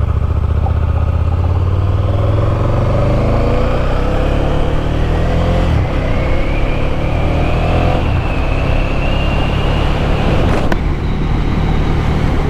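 KTM 1290's V-twin motorcycle engine under way, its pitch climbing steadily for several seconds as the bike gains speed, over a heavy rush of wind.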